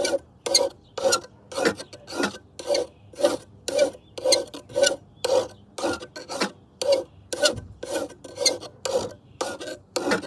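Hand file rasping along the bevelled cutting edge of a steel lawnmower blade, sharpening the dull blade with even one-direction strokes, about two a second.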